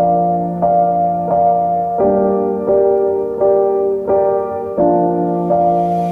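Background music: a gentle keyboard or electric piano tune with notes changing in a steady rhythm, a bit over one a second.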